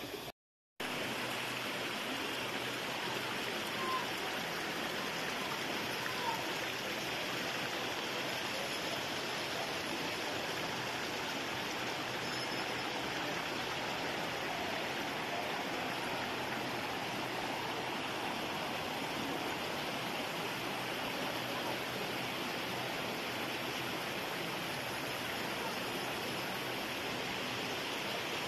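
River water rushing over and between boulders in a steady, even wash, cutting out for about half a second near the start.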